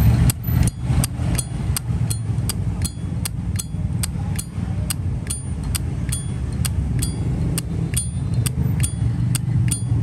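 Zippo lighter lid flicked open and snapped shut over and over, sharp metallic clicks about three a second, over a steady low rumble of traffic.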